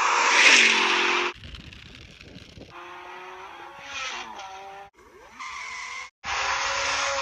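Car sound effects: tyre screeching and engine notes that fall in pitch, in short pieces cut off abruptly. The loudest screech comes in the first second.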